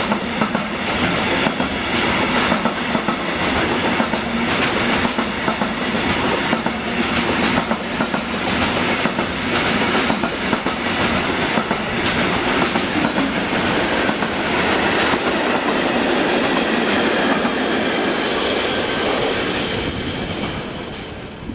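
Wagons of an intermodal container freight train rolling past close by, wheels clacking over the rail joints in an uneven run of knocks. The sound dies away near the end as the last wagon passes.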